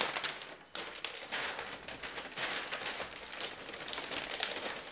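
Wrapping paper rustling and crinkling as it is handled and pressed over gift boxes: a continuous rustle with many small crackles.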